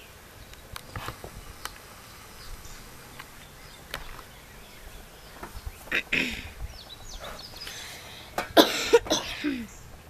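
A man coughing and clearing his throat, once about six seconds in and again, louder, near the end.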